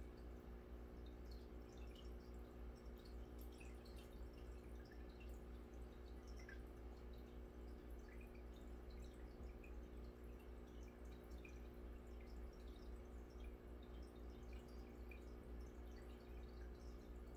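Aquarium air bubbles rising and breaking at the water surface, with faint scattered pops and drips. Under them is a steady low hum.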